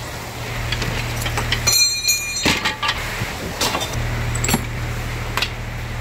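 Tools and gear being shifted around on a wooden workbench, with a ringing metal clank about two seconds in and a few sharp knocks after it. Under them is the steady rumble of a rain and hail storm with wind.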